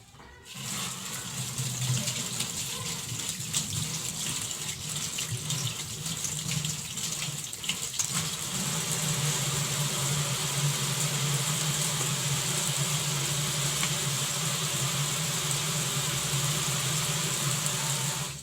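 Water running from a tap into a sink, a steady rush with a low hum beneath it, starting about half a second in and growing steadier and louder about halfway through.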